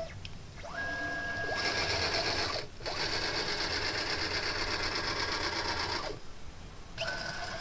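CNC machine's axis motors whining through a long positioning move that ramps up about a second in, dips briefly near the three-second mark and stops about six seconds in, then a short second move near the end, as the tool is brought to the zero point on the blank.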